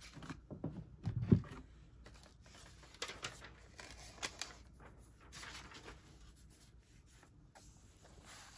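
Paper rustling and sliding as sublimation transfer sheets and butcher paper are handled on a table, with a couple of dull thumps about a second in.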